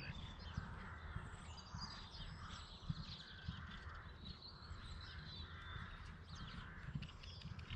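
Crows cawing in a repeated series, with fainter bird chirps above and a low rumble underneath.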